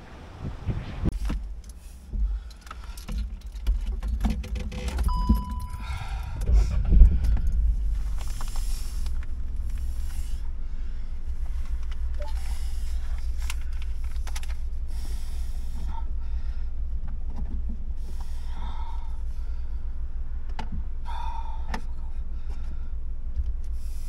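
Wind buffeting the microphone: a heavy low rumble that comes in irregular gusts for the first several seconds, then settles into a steady rumble, with scattered light rustles and clicks.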